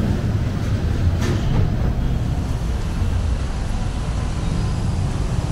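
Busy city street ambience: a steady low rumble of traffic and vehicle engines, with one short click about a second in.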